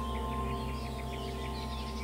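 Soft new-age background music, held notes slowly fading, with small bird chirps mixed in throughout.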